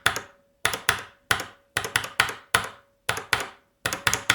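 Cherry MX Speed Silver, a linear mechanical keyboard switch on a switch tester, pressed over and over: sharp plastic clacks of the key bottoming out and springing back, often in close pairs, about three a second.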